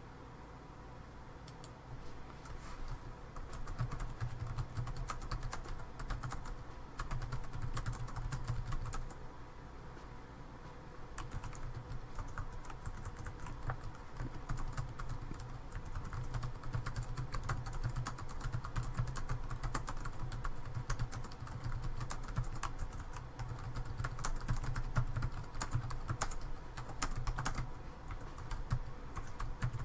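Typing on a computer keyboard: rapid, irregular key clicks in runs, pausing briefly about a second in and around ten seconds in, over a low steady hum.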